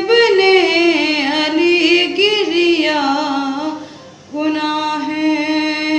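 A young woman's unaccompanied voice reciting a nauha, a Muharram lament, in a bending melodic line. She pauses for breath about four seconds in, then holds one long note.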